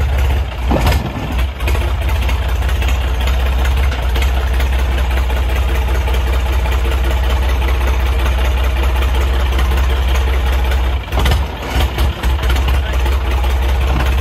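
John Deere 5050's three-cylinder diesel engine running hard under heavy load, pulling in a tractor tug-of-war with its front wheels lifted. The loud, steady low engine note dips briefly a few times near the end.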